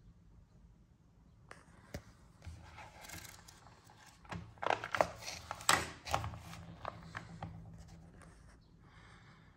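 Paper catalogue pages rustling and crinkling as they are handled and turned, with several sharp crackles, loudest about five to six seconds in.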